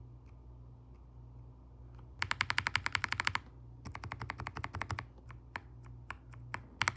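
Mechanical keyboard switches being pressed: a few single key clicks, then two fast runs of about ten keystrokes a second, scattered presses, and another quick run near the end.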